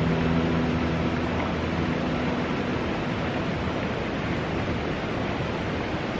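Steady rush of the River Teign's flowing water, an even hiss with no splashes standing out. The last held notes of guitar music fade out about two seconds in.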